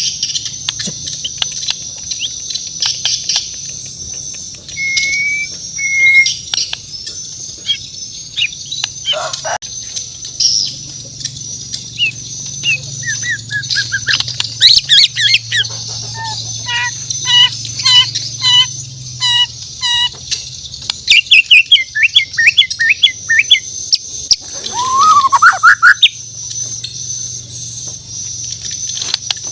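A shama (murai batu Borneo) singing a varied song of clear whistles, a run of evenly repeated notes, quick chattering notes and a rising whistle near the end, over a steady high hiss.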